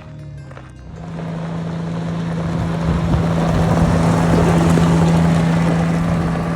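Heavy diesel engine running steadily under a rushing wind-like noise, growing louder over the first few seconds and easing off near the end.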